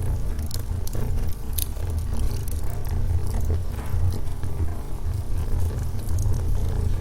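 Wood fire burning in a fireplace: a steady low rumble of flames with scattered sharp crackles and pops from the burning logs at irregular intervals.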